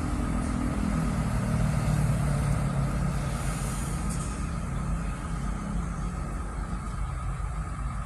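Diesel engine of heavy earthmoving machinery running steadily, louder in the first few seconds and then settling lower.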